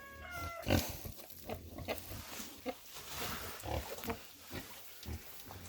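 Sow and her newborn piglets grunting in short low bursts, with a brief high squeal right at the start.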